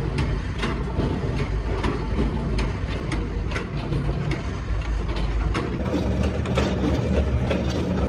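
Mechanical power press in a forge running with a steady low rumble, with frequent sharp metal clanks as red-hot rotavator blade blanks are pressed and handled on its steel tables.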